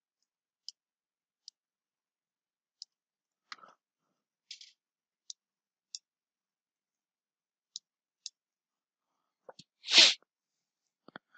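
Computer mouse clicking: sharp single clicks at an irregular pace, about one a second. About ten seconds in comes one brief, loud burst of noise, louder than anything else.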